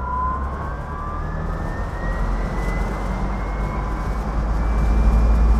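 Electric-converted Triumph Stag accelerating, its electric motor and single-speed reduction gearbox whining in a thin tone that rises steadily in pitch, over road and wind noise. A low rumble builds towards the end.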